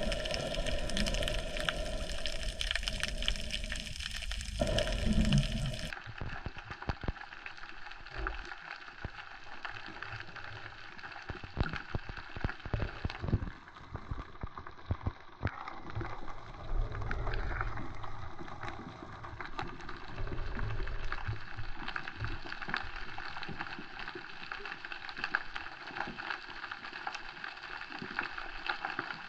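Water sounds from a spearfisher swimming with the catch: a steady wash of moving water and bubbling with many small clicks, the sound turning duller abruptly about six seconds in.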